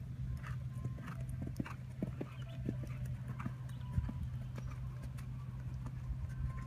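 Hoofbeats of a horse moving at trot and canter on a sand arena, an uneven run of soft thuds over a steady low hum.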